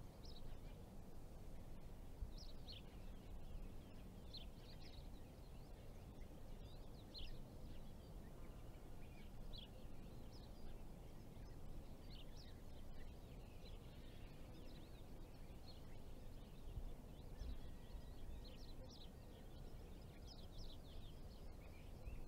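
Faint outdoor ambience: a steady low rumble of background noise with scattered short, high bird chirps every second or so.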